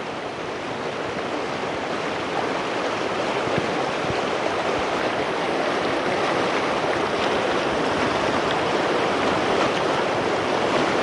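Fast river rapids: a steady rush of white water, growing a little louder over the first few seconds.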